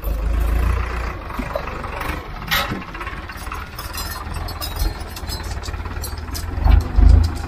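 Powertrac Euro 55 tractor engine running under load as it pulls a disc plough through dry soil: a steady low rumble with scattered short knocks, swelling louder near the end.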